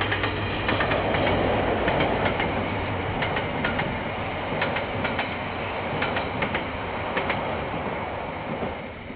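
Passenger train carriages rolling past, with a steady rumble and the wheels clicking over rail joints in pairs about once a second. A low diesel locomotive drone fades out within the first two seconds, and the sound dies away near the end as the last carriage passes.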